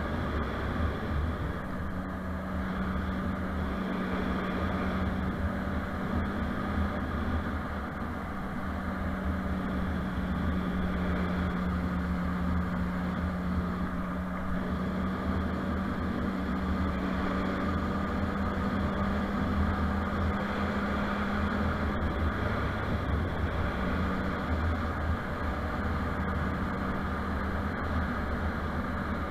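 Motorcycle engine running at a steady cruising speed, a constant engine note over a low rumble, with wind and road noise. The engine note drops away briefly about three-quarters of the way in, then comes back.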